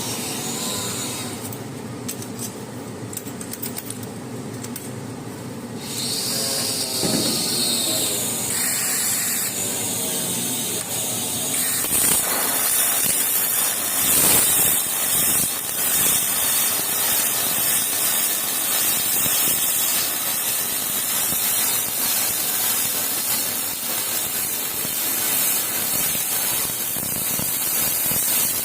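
MIG welding arc running with a steady hiss, its texture changing about six seconds in.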